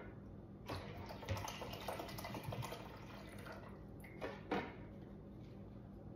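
Water poured from a plastic bottle into a single-serve pod coffee maker's reservoir, a faint trickle with a few light knocks of bottle and plastic.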